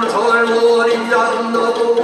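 Korean Buddhist monks chanting yeombul in unison, male voices holding long sung notes and moving slowly between pitches.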